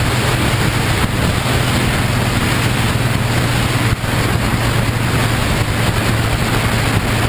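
Wind rushing over the microphone of a camera mounted on a moving motorcycle, with the steady drone of the motorcycle's engine underneath.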